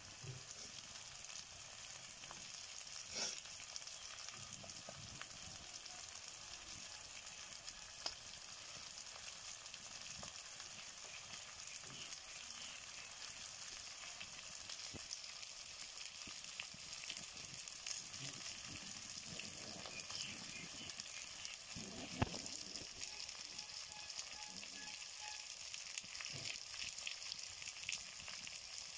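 Country chicken masala frying in oil in an iron kadai: a steady sizzle with fine crackling, and a few sharp pops.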